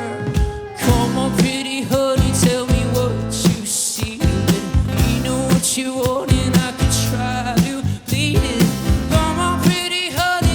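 Live band music: a steady drum beat with bass and guitar.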